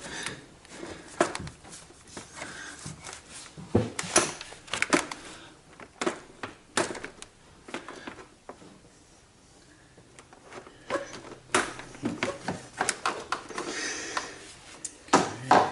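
Irregular clicks and knocks of a plastic engine fan shroud and its clips being pushed, pried and shifted by hand, with a quieter pause about halfway through.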